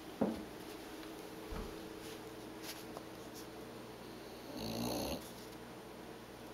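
A sleeping pet snoring: a short, sharp snort just after the start and one longer snoring breath about four and a half seconds in.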